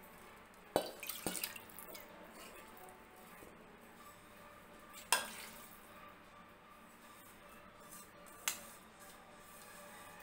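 A metal ladle and pan clanking against an aluminium pressure cooker as a tempered vegetable mixture is scraped out of the pan into it. A few sharp knocks: a small cluster about a second in, one in the middle and one near the end.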